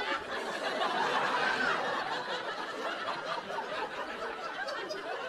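Comedy club audience laughing after a punchline, many voices together, loudest about a second in and then slowly dying away.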